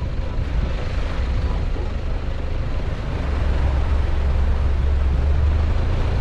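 A vehicle running: a steady low engine and road rumble that grows heavier about halfway through.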